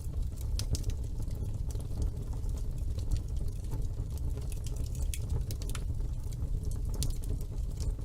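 Wood fire burning in a fireplace: a steady low rumble of the flames with frequent irregular crackles and small pops.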